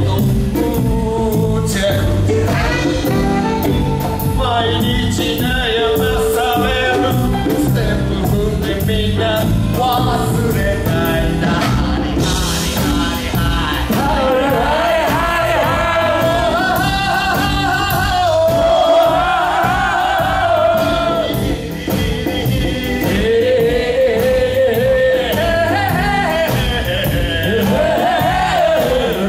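A live band performing: male vocalists singing into microphones over drums and electric guitar, with a steady beat.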